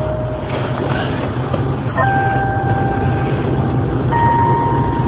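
Telephone on-hold music heard down a phone line: a simple electronic melody of held notes that changes pitch about every two seconds, over a steady hum and hiss.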